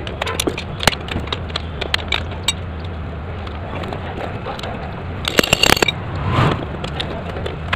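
Hand tools working on a motorcycle's rear axle nut and brake fittings: scattered metallic clicks and taps, then a quick run of sharp metal clinks a little past five seconds in, over a steady low hum.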